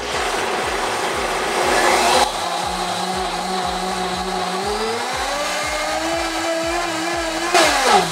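A 1500-watt Blendtec blender running at full power with plain water in the jar, a steady motor whine with churning water. Its pitch rises about five seconds in, then it winds down with a falling pitch near the end as it is switched off.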